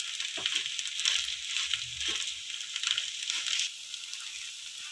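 Semolina-battered bread slices sizzling in ghee on a non-stick tawa, a steady frying hiss with a few soft knocks as the slices are shifted in the pan. The hiss drops noticeably near the end.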